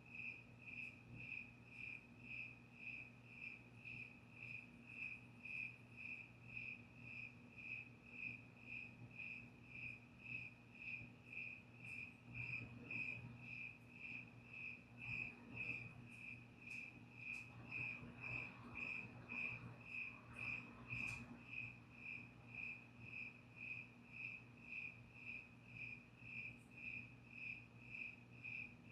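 A cricket chirping in a steady, even rhythm of about two chirps a second at one unchanging high pitch.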